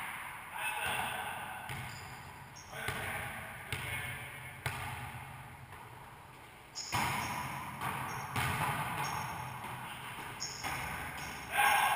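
A volleyball being struck by hands and bouncing off the walls and floor of a racquetball court during a wallyball rally. It gives a series of sharp smacks, about eight, each followed by a short echo off the hard walls, with the loudest hit near the end.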